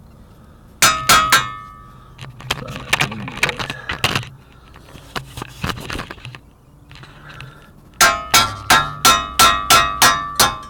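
Hammer blows on steel steering parts, each a sharp clang with a ringing tone: three or four blows about a second in, lighter metal clinks and rattling in the middle, then a quick run of about eight blows near the end.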